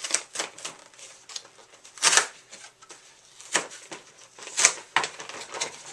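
Camcorder packaging being worked open by hand: irregular crinkles, scrapes and clicks, with the loudest rustles about two seconds in and again near four and a half seconds.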